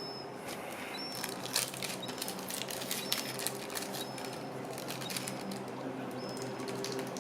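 Short high peeps of a begging gull fledgling, repeating about once a second, over a run of quick sharp clicks and taps.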